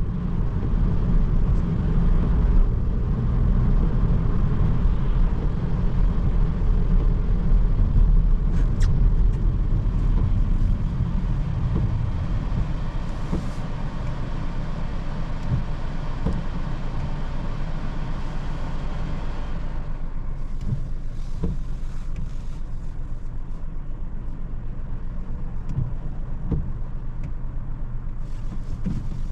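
Steady driving noise of a 2020 Seat Ibiza 1.0 TSI, heard from inside the cabin: the small three-cylinder turbo petrol engine humming under a low rumble of road noise. About two-thirds of the way through, the higher hiss falls away and it grows a little quieter.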